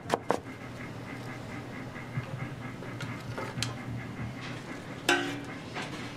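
The last two knife strokes julienning carrots on a cutting board, then a steady low hum with light handling of the cut carrot strips in a stainless steel pan. A short pitched sound comes about five seconds in.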